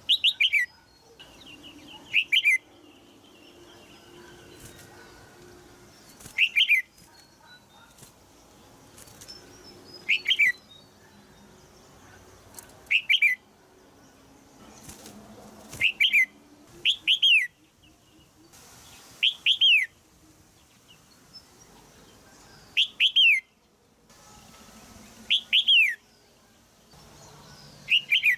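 Female red-whiskered bulbul giving short, sharp falling chirps, single or in quick pairs, every two to four seconds: the call used to prompt a young caged male to sing.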